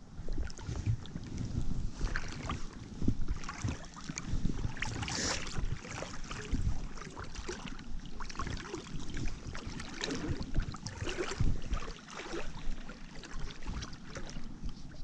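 Stream water sloshing and splashing irregularly around an angler wading in a trout stream, with low rumbles of wind buffeting the microphone.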